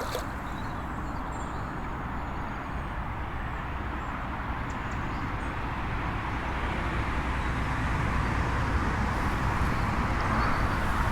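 A steady wash of outdoor background noise with no clear tone or rhythm, growing a little louder in the second half.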